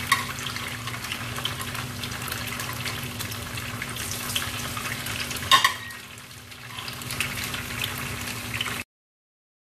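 Tofu cubes frying in oil in a non-stick pan: a steady sizzle with fine crackles. A single sharp knock comes about five and a half seconds in, and the sound cuts off abruptly near the end.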